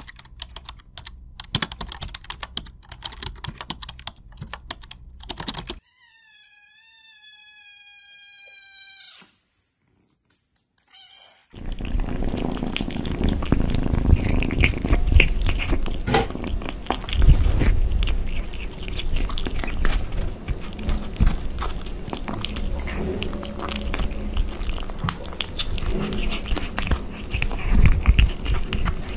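A kitten chewing and biting sausages held on a skewer in front of a foam-covered microphone: loud, close, irregular chewing and clicking, starting about twelve seconds in. Before it come a few seconds of faint clicking, then one long, steady high-pitched cry lasting about three seconds, and a short pause.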